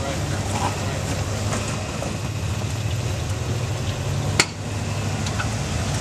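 Flat-fender Jeep's engine running slowly at low revs as it crawls over boulders, a steady low drone. One sharp crack comes about four and a half seconds in.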